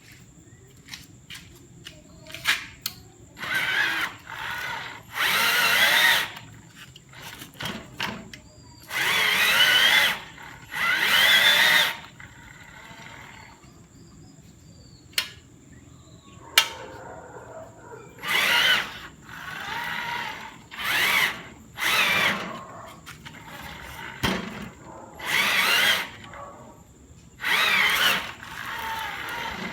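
Cordless-drill motor of a homemade electric tricycle running in about a dozen bursts of one to two seconds each, its whine wavering in pitch, with short pauses between.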